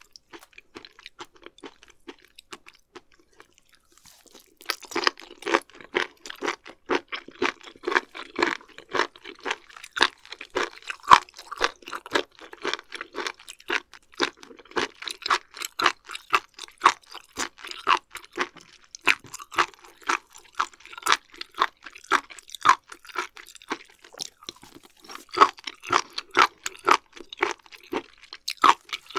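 Close-miked chewing of raw beef offal (liver and omasum), with wet crunchy chews. It is faint for the first few seconds, then turns into steady, quick chewing of about three chews a second.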